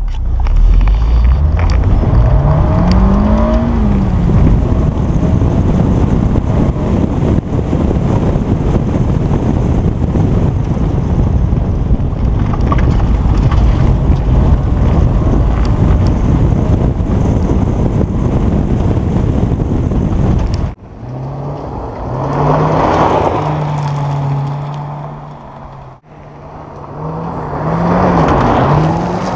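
Honda S2000's four-cylinder engine revving hard on loose gravel, heard from the bonnet-mounted camera under heavy wind and road rumble. After a sudden cut about two-thirds in, it is heard from the roadside: the engine revs rise and fall as the car slides through on gravel, swelling twice.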